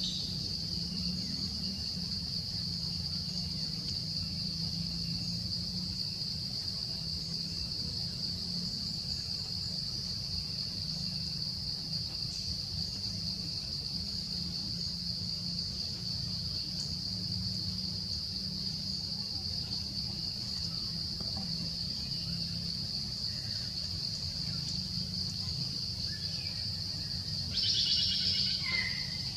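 Steady, high-pitched insect chorus over a low background rumble. About two seconds before the end a brief, louder high call rises over it.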